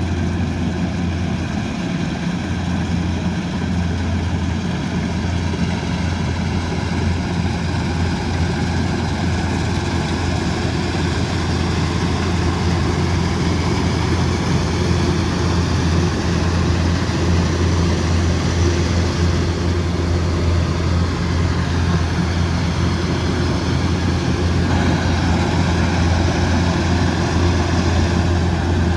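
Kubota DC108X combine harvester running steadily under load: a deep diesel engine drone with the whir of its machinery, growing slightly louder over the stretch.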